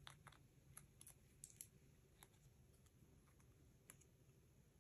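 Near silence with a few faint, sharp ticks from peeling the backing paper off foam tape squares on a small cardstock die-cut. Most of the ticks fall in the first two seconds, with one more near the end.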